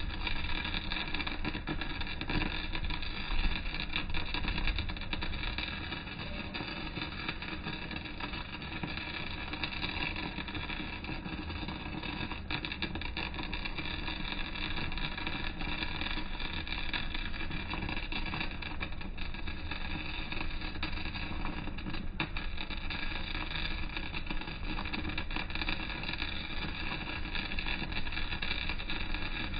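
Welding arc burning without a break, a steady crackle and hiss, while a vertical-down (3G downhill) weld is run on steel plate.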